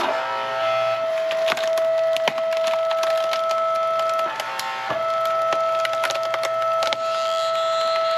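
Hydraulic log splitter whining steadily under load while a knotty log cracks and splinters apart on the wedge, with many sharp cracks. The whine breaks and shifts briefly about halfway through.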